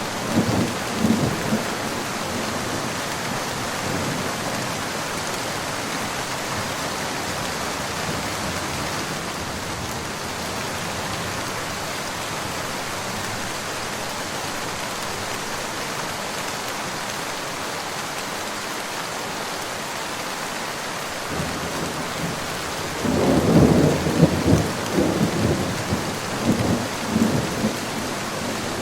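Steady rain with a rumble of thunder dying away just after the start. A second long, rolling thunder rumble begins about three-quarters of the way through and lasts several seconds.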